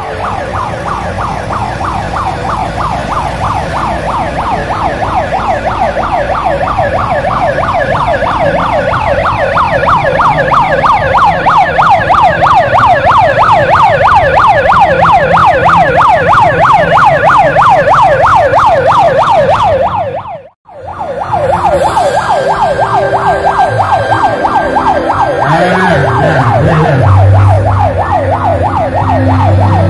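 Police patrol car's electronic siren wailing in a rapid, steady up-and-down warble, cut off briefly about two-thirds of the way through and then resuming. Near the end a low steady hum joins in.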